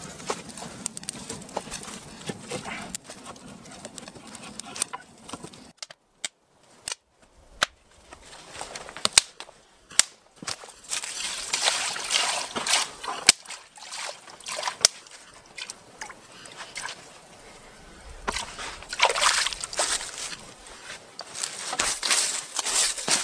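Water trickling and sloshing from a garden hose into a plastic bucket, with scattered knocks and clicks from outdoor work.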